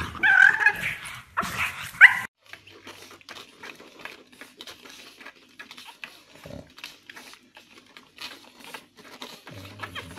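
A pug barking and yipping in high-pitched calls for about two seconds, then, after a sudden drop in level, many faint quick clicks from newborn pug puppies suckling.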